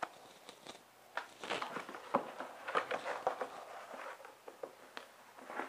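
Cardboard boxes and packaging being handled, a run of irregular rustles and light knocks that starts about a second in.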